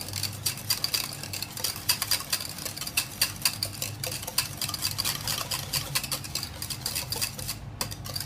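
A utensil stirring in a mixing bowl, clinking against it several times a second without a break, over a faint steady low hum.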